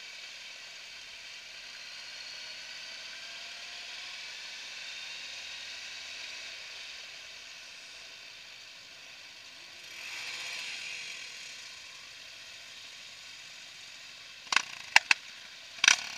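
Motorcycle riding slowly, heard faintly under a steady hiss, with a brief swell of noise about ten seconds in and a handful of sharp clicks and knocks near the end.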